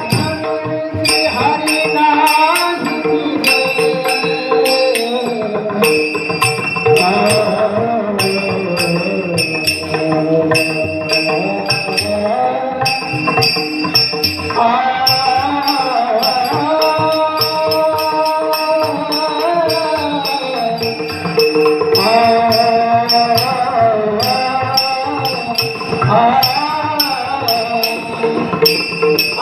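Warkari kirtan music: a devotional chant sung to a winding melody over a steadily held drone note, kept in time by rhythmic strikes of small hand cymbals (taal).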